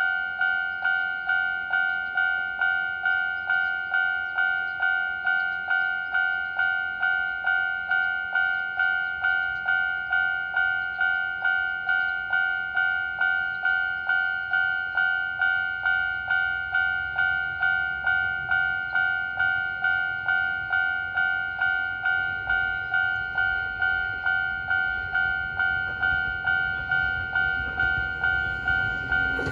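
Japanese railway level-crossing alarm ringing its old-type, high-pitched standard tone, an even 'kan-kan' ding a little under two times a second. A low rumble from an approaching train grows through the second half.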